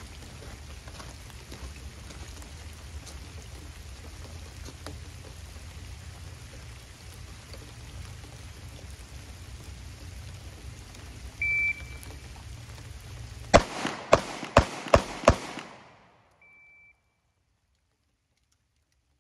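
Steady rain falling, then a shot timer's beep. About two seconds later come five 9mm pistol shots from a Sig P225, the gaps shortening so that all five land within about four seconds of the beep. A second, fainter short beep follows the string.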